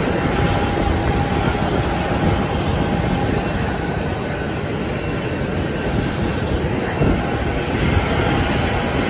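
Steady jet aircraft noise with a faint, even high whine held underneath.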